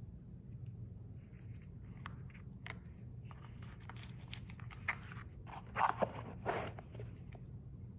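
Hands handling cardboard boxes and paper packaging: scattered light clicks and rustles, with two louder crinkles around six seconds in.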